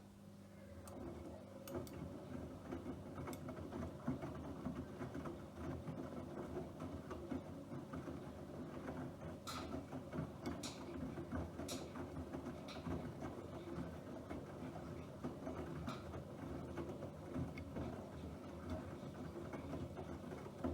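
Bosch Aquasensor WFP3231 washing machine running: a steady mechanical rattle that starts about a second in, with a few sharp clicks partway through.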